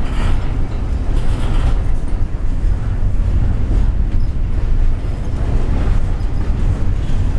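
Double-stack intermodal freight train's container well cars rolling past close by: a loud, steady rumble of steel wheels on the rails.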